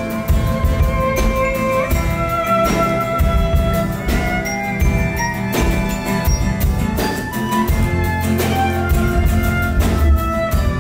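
Instrumental passage of a kirtan fusion song: a sustained melody line with slides between notes over a steady drum beat and heavy bass.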